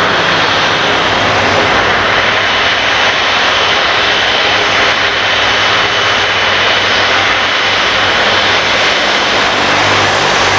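Jet engines of an Airbus A330-243F freighter (Rolls-Royce Trent 700s) running steadily as it moves on the runway, a loud even rush with a steady high-pitched whine over a low hum.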